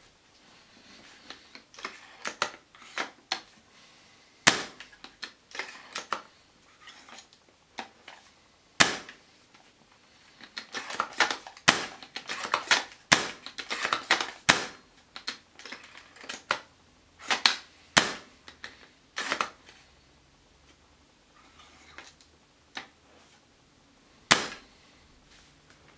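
Tokyo Marui VSR-10 spring-powered bolt-action airsoft rifle, fitted with an Airsoft Pro 90-degree trigger and piston, being cycled and fired: clusters of clicks from the bolt being worked, with a few sharp, louder snaps as shots are released. The bolt pull is being shown off as smooth after the new trigger went in.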